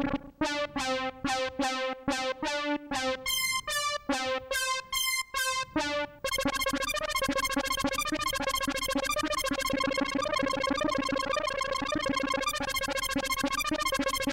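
Synth brass patch ('Hard Brass+') in Digidesign's Xpand!2 virtual instrument, played by its arpeggiator as a Pro Tools click track. At first it plays separate stabbing notes with short gaps, then from about six seconds in a fast, continuous arpeggiated run of repeating notes.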